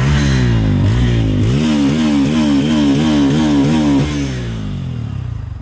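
Bajaj Pulsar's single-cylinder engine being revved in repeated throttle blips. The blips come quicker toward the middle, about three a second, then the revs fall back toward idle about four seconds in.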